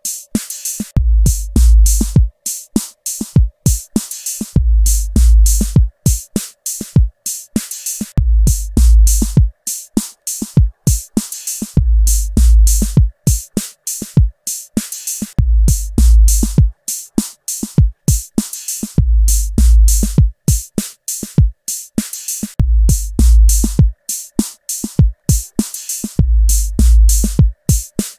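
Background music: a fast electronic drum-machine beat, with a deep bass note returning every three to four seconds.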